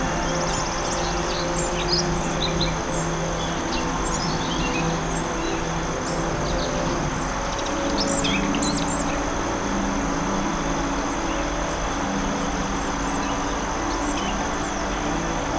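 Birds chirping, with quick calls mostly in the first half, over a sustained low ambient music drone whose held notes shift about halfway through.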